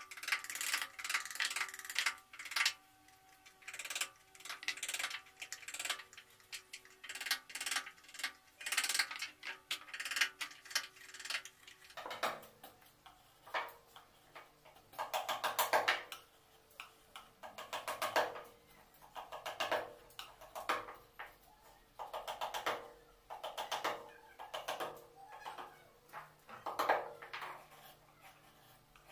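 Hand wood-carving chisel cutting into a timber panel: short bursts of quick taps and crackling as each stroke shears through the grain, coming irregularly about once a second.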